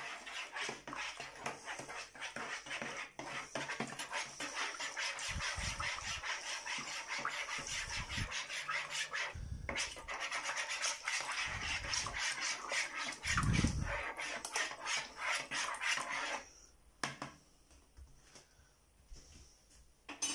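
A metal spoon stirring liquid in a plastic bowl, scraping and clicking against the bowl in quick rhythmic strokes, about four a second, with a few dull knocks from the bowl. The stirring stops about sixteen seconds in.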